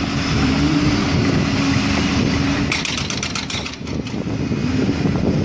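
An engine running steadily with a slightly wavering hum. About three seconds in comes a quick run of sharp clicks lasting about a second.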